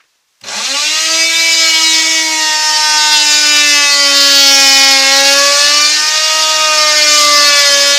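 A power tool starts about half a second in and runs steadily at a high whine, its pitch sagging and recovering slightly as it cuts into a wooden panel.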